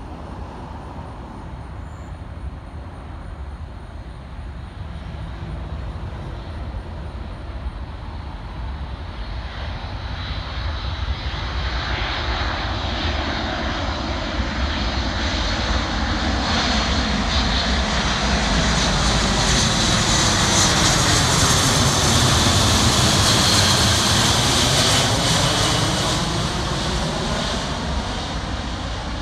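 A US Air Force C-17A Globemaster III's four Pratt & Whitney F117 turbofan engines on final approach to land. The jet noise builds steadily with a high whine as the aircraft closes in, reaches its loudest about three-quarters of the way through, then begins to ease.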